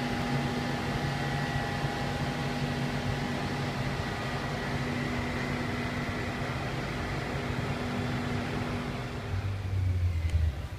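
Standing electric train at a station platform, its ventilation and electrical equipment humming steadily with several steady tones. A low rumble swells near the end.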